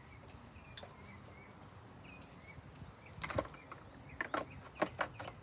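Faint bird chirps in the background, then a cluster of sharp clicks and knocks from hands working the plastic fuel cap on the lawn mower's gas tank while the engine is not running.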